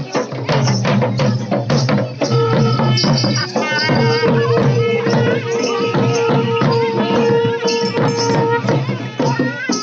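Folk drumming on two-headed barrel drums, a fast driving beat. From about two and a half seconds in, a long steady note is held over the drums until near nine seconds.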